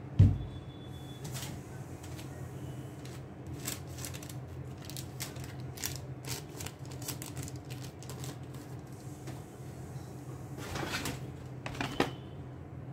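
A thump as a shoe is set down on a table near the start, then scattered crinkles and rustles of tissue paper and a brown paper courier bag being handled, with a denser crinkle near the end. A low steady hum sits underneath.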